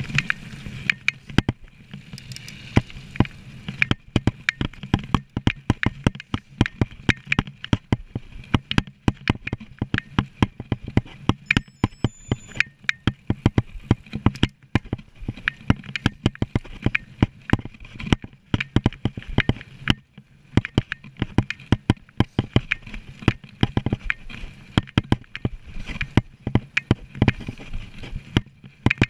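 Mountain bike ridden fast over a rough dirt trail: a constant run of irregular clicks, knocks and rattles as the bike jolts over bumps, over a steady rolling noise.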